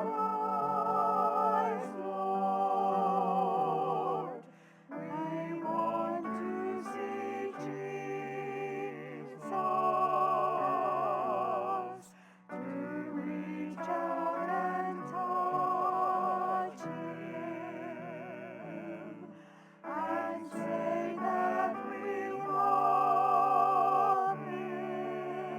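Church music: a solo voice sings long phrases with a wide vibrato over a steady keyboard-style accompaniment, with short breaks between phrases three times.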